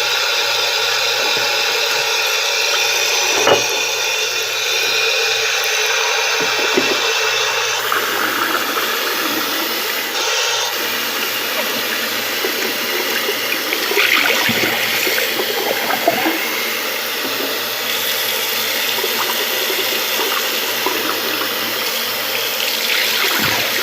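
Tap water running steadily into a sink while a shaving brush is rinsed out under it, with a few brief knocks.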